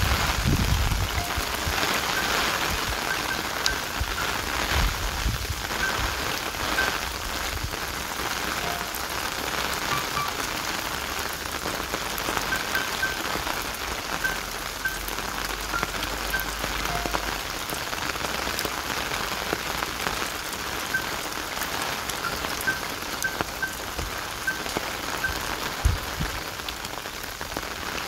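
Steady rain falling on surfaces, with many small scattered drop ticks.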